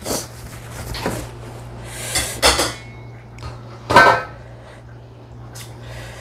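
Short, sharp sniffs and hissing breaths, about five in all, the loudest about four seconds in, from someone eating fried rice vermicelli made very spicy with hot chili, her nose running from the heat.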